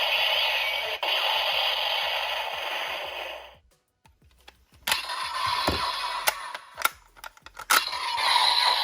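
DX Zaia Thousandriver toy transformation belt playing its electronic finishing-move sound effect through its small speaker, which cuts off abruptly about three and a half seconds in. After a short silence come sharp plastic clicks, scraping and rattling as the toy belt and its key are handled.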